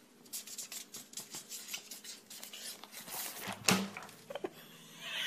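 Handwriting: a pen or marker scratching on paper in many short strokes and taps, with one brief louder sound about two-thirds of the way in.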